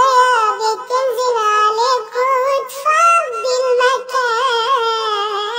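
High-pitched, cartoonish voice singing a long, wavering, wordless line in the style of a mawwal, with pitch bends and trills and only brief breaths between phrases.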